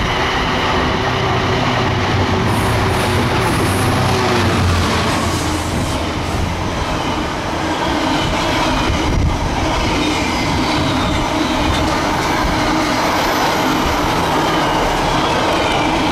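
Container freight train passing close by at speed: a loud, steady rumble of the wagons' wheels on the rails.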